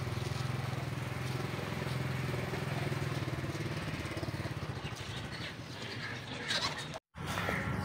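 A small engine running steadily, a low hum that fades over the last few seconds.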